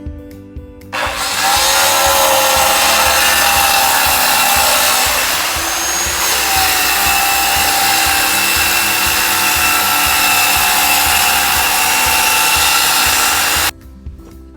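Electric power saw cutting through a wooden board: a loud, steady whine that starts about a second in, dips slightly in pitch midway, and cuts off abruptly near the end.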